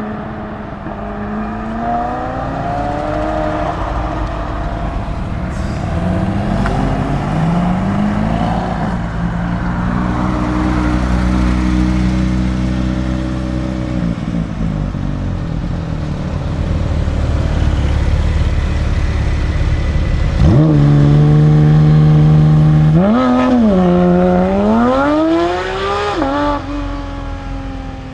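Lamborghini Huracán STO's naturally aspirated V10 accelerating and lifting off, its pitch climbing and dropping with the gear changes. It holds a steady note in the middle, then rises sharply about two-thirds of the way through, with a few quick rises and falls near the end.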